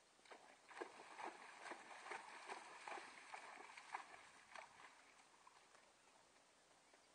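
Faint splashing of a horse's hooves trotting through shallow water, strokes about twice a second. The splashing dies away about five seconds in as the horse comes out onto sand.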